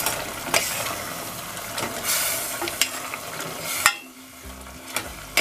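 Metal ladle stirring braised pork simmering in sauce in a stainless steel pot, a steady hiss of the sauce with the ladle clinking against the pot several times. The loudest clink comes just before four seconds in, after which the stirring noise drops away and it grows quieter.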